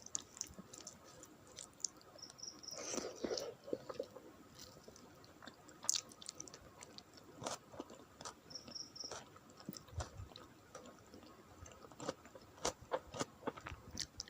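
A person chewing a meal of rice and curry close to the microphone: soft, irregular wet clicks and smacks of the mouth, with a brief louder patch about three seconds in.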